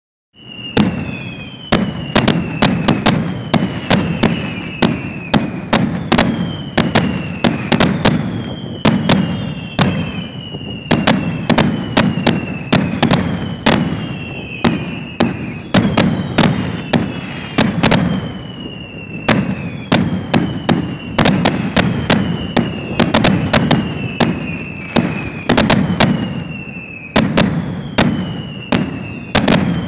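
Fireworks going off in a continuous barrage: rapid sharp bangs and cracks, several a second, over a low rumble. A short falling whistle comes roughly every second and a half.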